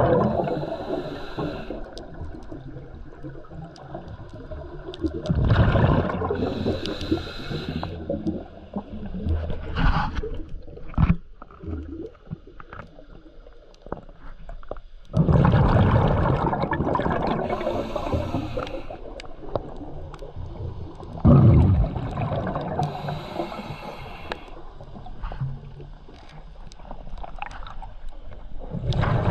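Scuba regulator breathing underwater: a loud burst of exhaled bubbles gurgling out every several seconds, with quieter water noise and a few small knocks between breaths.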